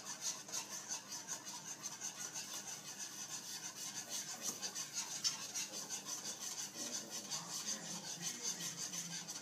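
Wire whisk scraping around a skillet in quick, even strokes, stirring a milk-and-flour sauce as it starts to thicken.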